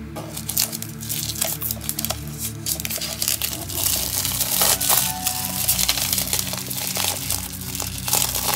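Clear plastic shrink-wrap crinkling and tearing as it is peeled by hand off a metal steelbook disc case, with irregular crackles throughout. Quiet background music runs underneath.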